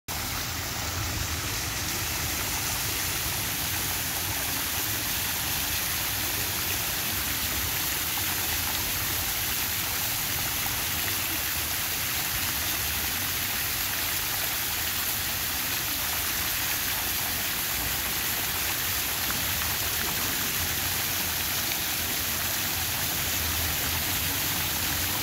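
Fountain spraying: water jets splashing into the basin and misting nozzles hissing, one steady even rushing noise.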